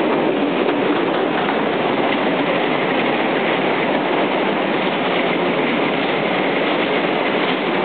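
Bumper cars running on the rink's metal floor: a steady rolling rumble and rattle, with no single bump standing out.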